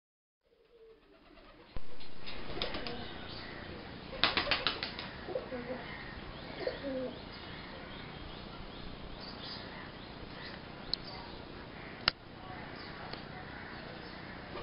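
Rock pigeons at their nest: a quick flurry of wingbeats about four seconds in, a few low soft coos after it, and a single sharp click near the end.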